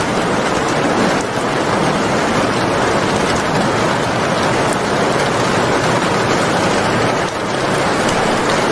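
Steady heavy rain: a dense, even hiss of falling rain with faint scattered drop ticks.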